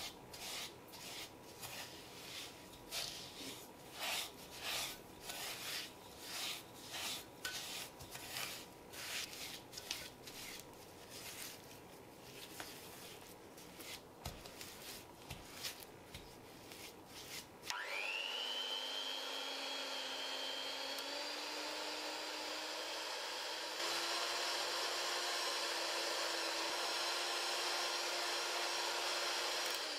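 Silicone spatula scraping and pressing butter and sugar against a glass bowl in rhythmic strokes, about two a second. A little past halfway an electric hand mixer starts with a rising whine and runs steadily, switched up to a higher speed a few seconds later, creaming the butter and sugar until white and fluffy.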